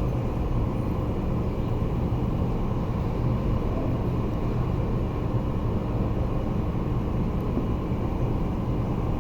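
Steady low rumble with a faint hum running under it, unchanging throughout.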